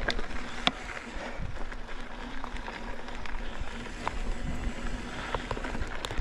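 Mountain bike rolling over a rough dirt trail: tyre noise on the ground, with scattered sharp clicks and rattles from the bike and a low rumble.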